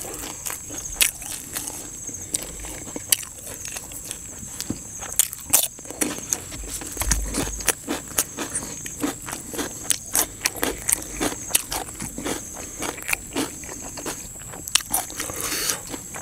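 Close-up chewing: a person chewing and crunching mouthfuls of koi khom with raw vegetables, a run of irregular wet clicks and crisp crunches.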